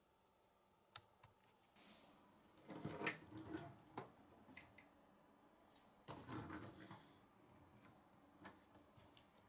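Plastic K'nex pieces clicking and rattling as they are handled and snapped together: a few sharp single clicks, with two short spells of rattling about three seconds in and again about six seconds in. Faint.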